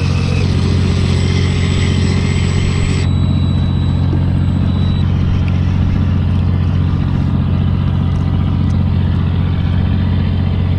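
Boat's engine running steadily with a loud, even low hum. A higher hiss on top stops abruptly about three seconds in.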